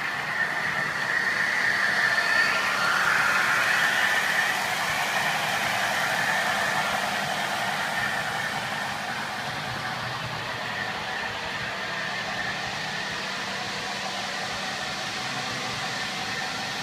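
Model trains running on a model railway layout: a steady whir of motors and wheels on the rails, a little louder for the first few seconds as a train passes close by.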